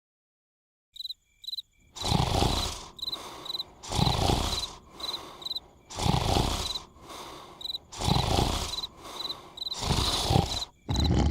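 Cartoon snoring: after a second of silence, a loud snore comes about every two seconds with a quieter breath between. Short high chirps of crickets sound between the snores.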